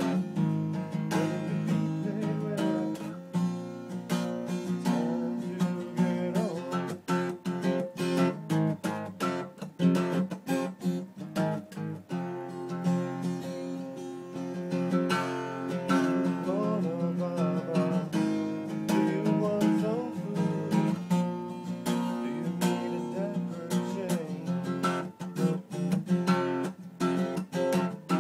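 Acoustic guitar being strummed and picked, with a voice singing along in places.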